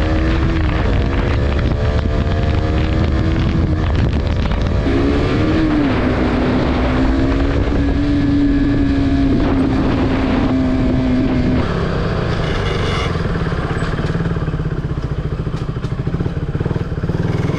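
Motorcycle engine heard from the rider's seat while riding. The engine note climbs for a few seconds, drops sharply about five seconds in, then holds steady. After about twelve seconds it falls away to a lower, quieter running as the bike slows.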